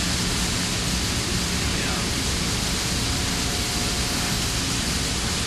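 Steady outdoor noise, an even rushing hiss with a faint low hum underneath.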